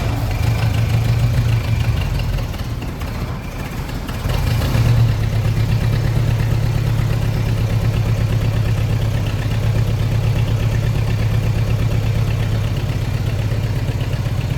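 Yamaha YZ dirt bike engine idling steadily, picking up and getting louder about four seconds in. It is running on fresh gas after a carburetor clean-out and rebuild kit, which replaced seven-year-old fuel.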